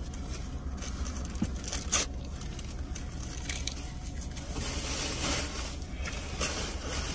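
Eating sounds: chewing and crinkly rustling of food wrappers, with a sharp click about two seconds in, over a steady low rumble.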